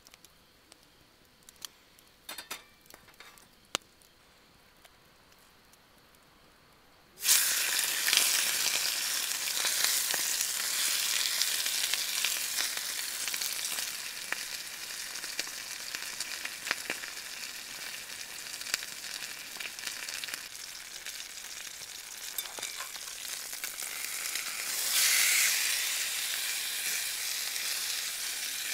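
Chicken frying in a black iron skillet over a wood fire: after a few faint clicks, a loud sizzle starts abruptly about seven seconds in and carries on, swelling again near the end.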